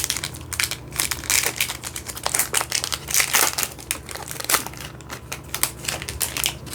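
Plastic trading-card pack wrapper crinkling as it is handled, an irregular run of crackles.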